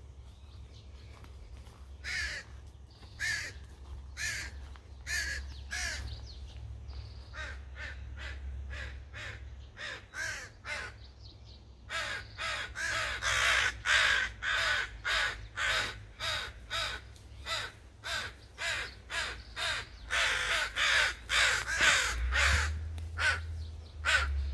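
Several crows cawing in alarm: scattered caws about once a second at first, then from about halfway a rapid, near-continuous string of louder caws. The crows are agitated, the way they act toward a hawk or owl, though they may be treating the people walking by as the threat.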